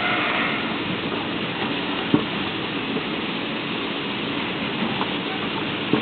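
Side seal shrink packaging machine running with a steady mechanical noise from its shrink tunnel and roller conveyor. Two short sharp knocks come about two seconds in and near the end.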